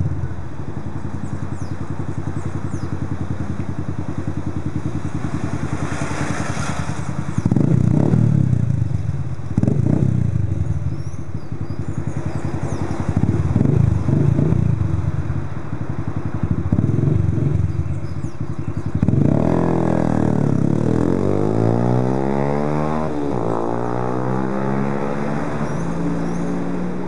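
Yamaha YBR Factor 125's single-cylinder four-stroke engine through a Roncar aluminium RS aftermarket exhaust, idling with several short blips of the throttle. In the last third the revs climb steadily, drop once and climb again, as when accelerating through a gear change.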